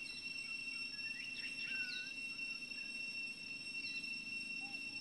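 Steady high-pitched insect drone, unbroken, with scattered short chirps and squeaks gliding up and down over it.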